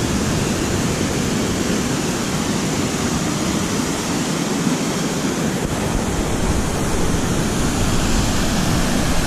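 Steady rush of a small waterfall and rocky cascade pouring white water into a deep river pool.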